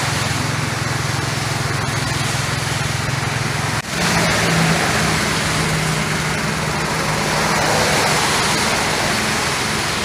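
A small engine running steadily, with a constant low hum under an even hiss. The hum shifts slightly in pitch about four seconds in.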